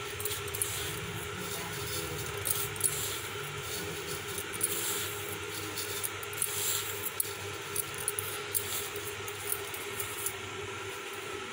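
Soft rustling and light scratching as salt is sprinkled by hand over chopped barhar (monkey fruit) pieces and raw spices in a steel bowl and spread with the fingers, with scattered faint ticks over a steady background hum.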